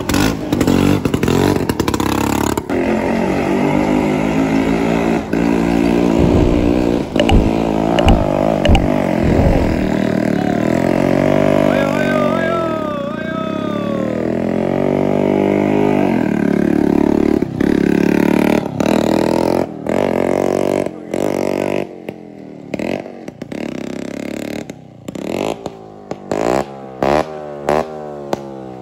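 Small motorcycle and scooter engines, with passing cars, labouring over a broken gravel road, revving up and down with some clatter. From past the middle on the sound jumps abruptly many times.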